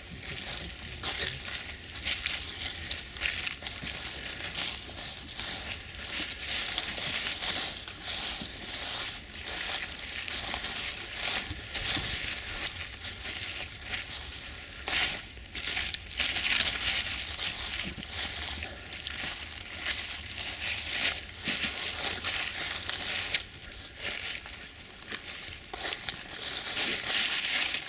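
Footsteps crunching and rustling through dry fallen leaves and brush, with a continuous irregular crackle.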